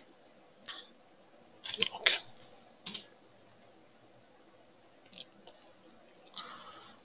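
Scattered clicks of a computer keyboard and mouse, a handful of sharp clicks spread over several seconds, the loudest pair about two seconds in.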